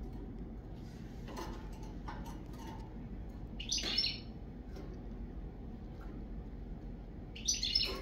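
Sparrows giving scattered short chirps, the loudest cluster about four seconds in and another near the end, over a steady low background hum.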